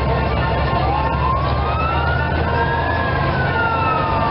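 Engine of an American six-wheel army cargo truck running with a steady low hum as it drives past. Over it a siren winds slowly up to a peak and then back down, once.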